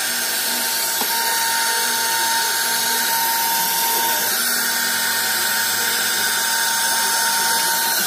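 Handheld hair dryer running steadily, a constant motor whine over rushing air, blowing hot air onto the plastic of a refrigerator's can dispenser to soften it.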